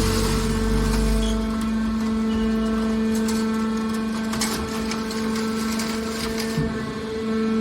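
Hydraulic scrap metal baler running with a steady machine hum. A deep rumble drops away about a second in, and a few sharp knocks are heard around the middle.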